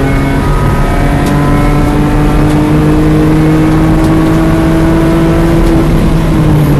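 BMW E46 M3's S54 inline-six pulling at full throttle in one gear, heard inside the cabin, its note rising steadily for about six seconds as the car accelerates, then falling away near the end.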